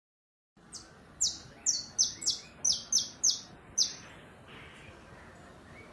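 A small songbird singing a run of about eight sharp, high notes, each sliding downward in pitch, at roughly three a second; the song stops a little after the middle.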